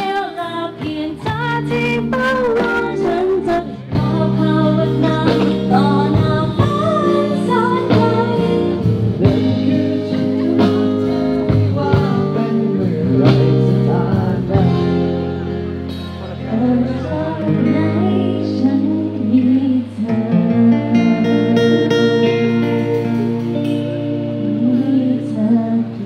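The bride and groom singing live into handheld microphones over a PA, backed by instrumental music with plucked notes.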